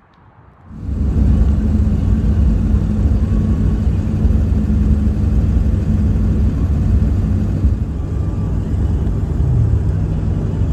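Truck engine and road noise heard from inside the cab while driving: a steady low rumble that starts about a second in, after a moment of quiet.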